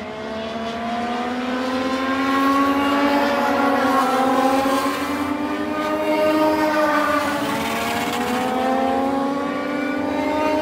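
A pack of Legends race cars, each with a Yamaha motorcycle engine, racing at high revs. Several engine notes overlap, their pitches rising and falling as the drivers accelerate and lift. The sound grows louder over the first couple of seconds as the cars come closer.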